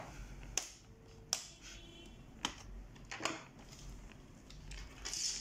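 Sharp plastic clicks and knocks from the HP ProBook 4530's plastic case and panels being handled and fitted: about four separate clicks at irregular spacing, then a brief rustle near the end.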